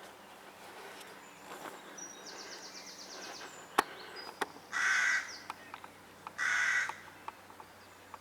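A crow cawing twice, two harsh calls about a second and a half apart, with a short rapid bird trill just before.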